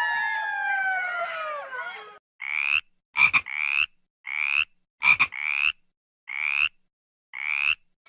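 A red fox's long, falling wail, which breaks off about two seconds in. Then a frog croaks six times, about once a second, each call short, with two of them opening with a sharp click.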